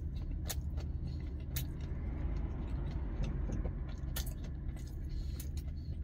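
Truck engine idling, a steady low hum heard inside the cab, with scattered small sharp crackles from chewing and the plastic bag and gloves.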